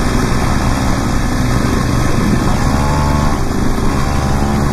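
Mini moto's small single-cylinder engine running steadily at low speed.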